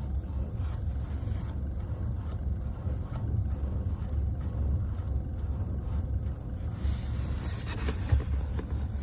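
Light repeated clicks from the electric power steering of a 2016 Hyundai Elantra as the steering wheel is rocked back and forth, over a steady low rumble, with a few stronger clicks near the end. This is the cold-weather knock that the owner traces to the power steering unit rather than to play in the steering shaft joint; it goes away once the cabin warms.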